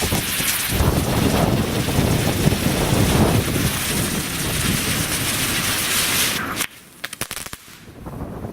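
A small ground firework burning with a continuous rapid crackling hiss, cutting off abruptly about six and a half seconds in, followed by a few faint pops. Strong wind buffets the microphone.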